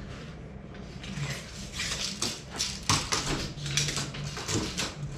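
Handling sounds of measuring and marking on a door: irregular scraping and light clicking from about a second in, over a faint steady low hum.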